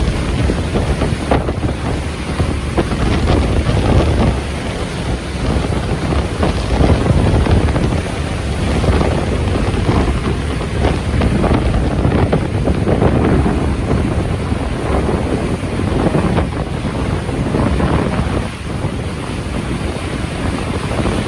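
Strong wind buffeting the microphone in gusts, over a wash of sea water.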